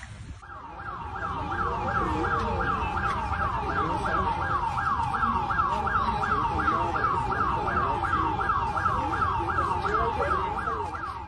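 A siren sounding a fast, repeating falling wail, about three sweeps a second, starting about half a second in, over a steady low rumble.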